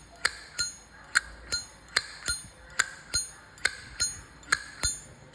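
Zippo lighter's hinged lid flicked open and snapped shut over and over, about six times: a pair of sharp metallic clicks with a short ring for each open and close. The clear ring of the original hinge is what the seller calls good sound.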